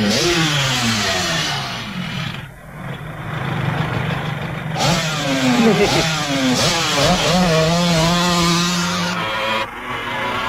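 Motorcycle engine revving and accelerating, its pitch repeatedly sweeping down and up, then holding a steady high pitch for a second or two before dropping near the end.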